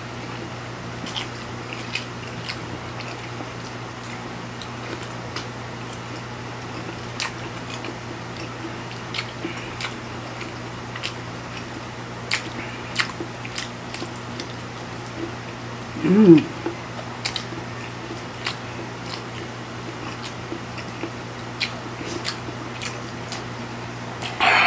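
Close-miked eating: chewing and biting of spicy instant noodles and sausage, with many small wet mouth and fork clicks over a steady low hum. About two-thirds of the way through comes one short vocal sound with a falling pitch, the loudest moment.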